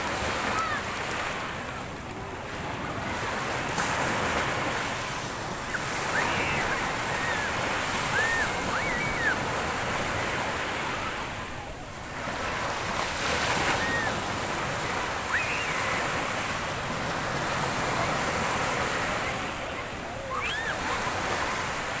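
Sea surf breaking on a shore, the wash of the waves swelling and easing every several seconds, with a few short high chirping calls above it.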